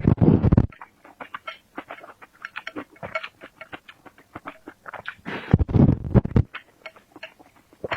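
Close-miked eating: a run of wet chewing clicks, with two louder, deeper spells of chewing, one right at the start and one about five and a half seconds in.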